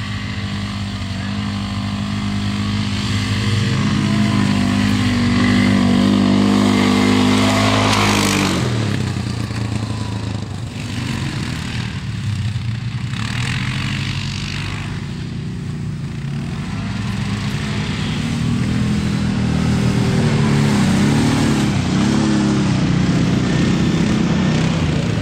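ATV engines running, one revving as it is ridden across snow. Its engine note climbs for about the first eight seconds, then drops suddenly, and rises and wavers again near the end.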